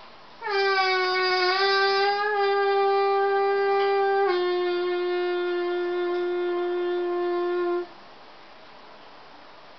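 One long held musical note, lasting about seven seconds, that drops slightly in pitch about halfway through and stops abruptly.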